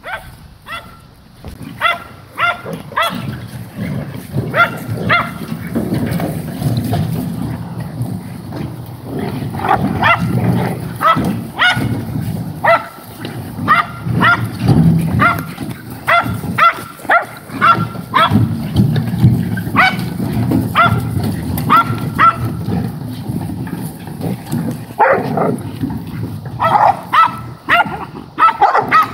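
A pack of dogs, black mouth cur hog dogs among them, barking in short repeated barks, about one or two a second, as they attack an overturned plastic wheelbarrow; the barking grows denser near the end. A steady low rumble runs underneath.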